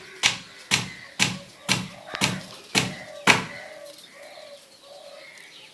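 Pigeon wings flapping in sharp, evenly spaced strokes about twice a second, about seven in all, stopping about three and a half seconds in. Soft, low pigeon coos follow.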